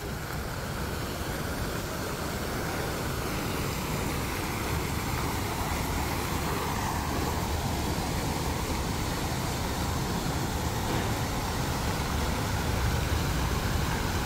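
Steady city street noise: a continuous rumble of road traffic, growing slightly louder over the stretch.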